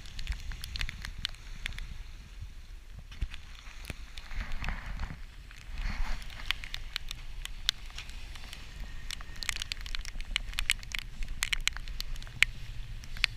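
Gale-force wind buffeting the action-camera microphone as a steady low rumble, with frequent sharp ticks and crackles scattered through it, thickest near the end.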